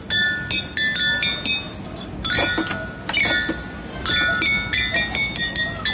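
Wall-mounted play-area xylophone with coloured tubes, struck over and over with a small mallet at an uneven pace. Each strike rings briefly, and the notes jump between several pitches.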